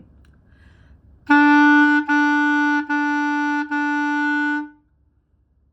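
Clarinet playing four tongued notes on the same pitch, each separated by a brief break from the tongue rather than a breath. The fourth note is held a little longer.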